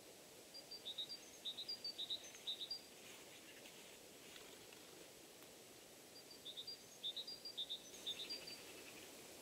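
A small bird singing two phrases, each a quick run of high, repeated two-note chirps lasting about two seconds, the second starting about six seconds in, over a faint steady outdoor hiss.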